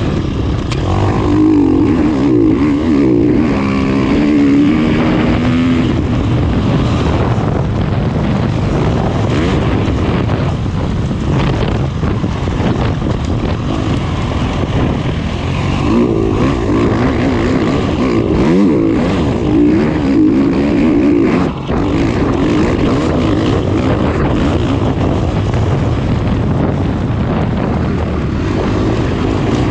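KTM dirt bike engine under way at race pace, its pitch rising and falling repeatedly as the throttle is worked, heard from the rider's helmet. The engine briefly drops off about three-quarters of the way through, then picks up again.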